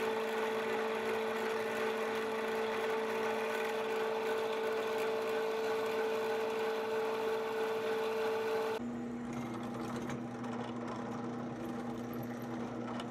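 Drill press running, its small twist drill boring through steel bar stock: a steady motor hum with a strong tone, which drops to a lower pitch about nine seconds in.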